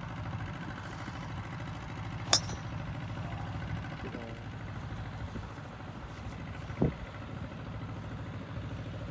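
A golf driver striking a ball off the tee: one sharp, high click about two seconds in. A duller knock follows near the end, over a steady low rumble.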